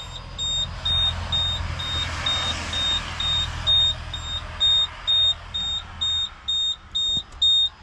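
A machine's warning beeper sounding a high, steady beep about twice a second, over a low motor hum that stops about six seconds in.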